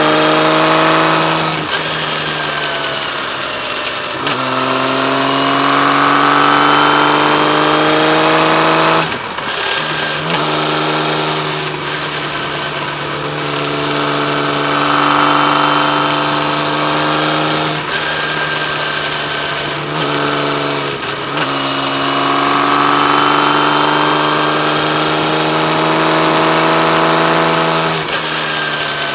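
Kawasaki Z1300's inline-six engine running under way, its note holding and slowly changing as it pulls, with several brief dips where the throttle is closed, as at a gear change, after which the engine note picks up again.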